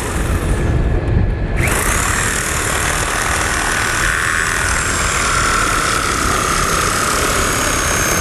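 Powered reciprocating saw cutting through a car's laminated windshield: the motor spins up about a second and a half in and then runs steadily, its pitch sagging slowly as the blade loads. A steady engine rumble runs underneath.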